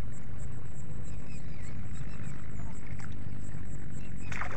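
Steady low wind rumble on the microphone, with a faint high ticking about three times a second and a short burst of noise near the end.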